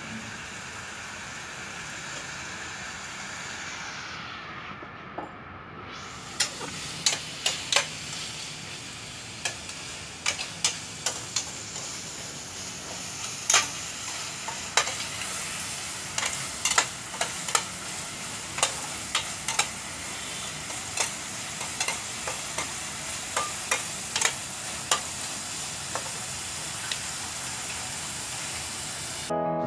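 Chicken offal sizzling in a stainless steel frying pan while a metal spatula stirs it, clacking and scraping against the pan many times from about six seconds in.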